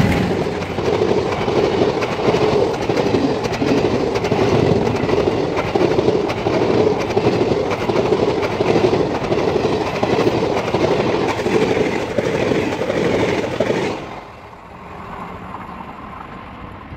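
Express passenger train passing close at speed: the wheels make a loud, dense rumble and a rhythmic clatter over the rail joints as the coaches go by. About fourteen seconds in, the noise drops off suddenly as the last coach passes, and the train fades away.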